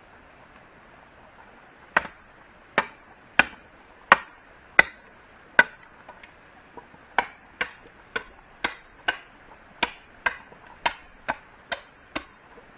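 Chopping: about eighteen sharp strikes at roughly one every half to three-quarters of a second, starting about two seconds in, the first six the loudest.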